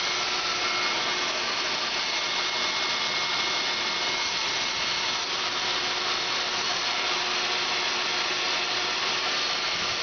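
Dog grooming dryer running steadily, blowing air through its hose: an even rush of air with a few faint steady whining tones from the motor.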